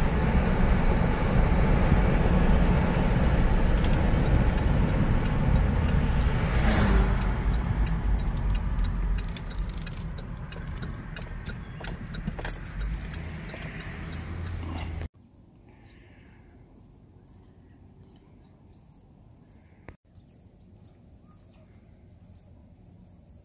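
Road and engine noise inside a moving car, easing off as the car slows. About fifteen seconds in it cuts off abruptly to a quiet outdoor stretch with faint, repeated high chirps.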